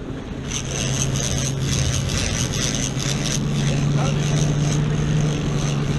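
Boat engine running steadily, with water rushing and splashing past the hull. About half a second in, a rapid, rough ticking rasp starts: a big conventional trolling reel being cranked, winding in line on a hooked wahoo.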